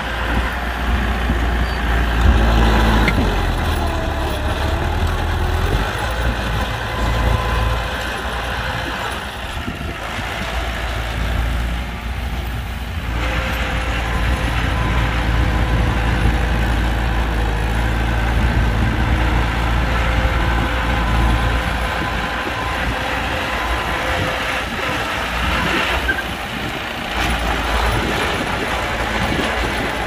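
Heavy diesel machinery working: dump truck and bulldozer engines running, with thin steady whines over the low engine noise. The sound eases briefly about ten seconds in, then picks up again.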